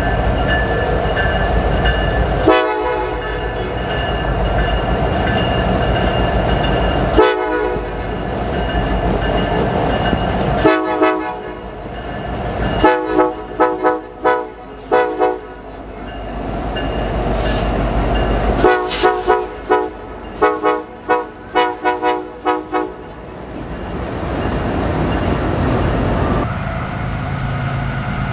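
Diesel freight locomotive's multi-chime air horn: several long held blasts, then two runs of rapid short toots, over the heavy low rumble of the passing locomotives. Near the end the horn stops and only a steadier, quieter train rumble remains.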